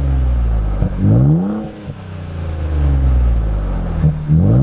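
Ford Bronco Raptor's 3.0-litre twin-turbo V6 running through an AWE SwitchPath catback exhaust, revved in two blips, about a second in and again near the end, with a steady exhaust note between them.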